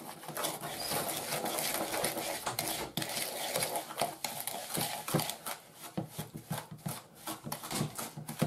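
Metal spoon stirring egg yolks and sugar in a mixing bowl by hand, a rapid, irregular run of scrapes and taps against the bowl.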